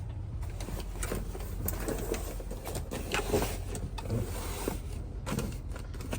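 Steady low hum of a semi truck idling, heard inside the cab, with scattered light clicks and handling noises over it.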